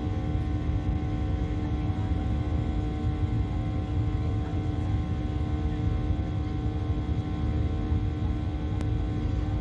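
Airliner cabin noise in flight: a steady low rumble from the jet engines and airflow, with several steady humming tones over it.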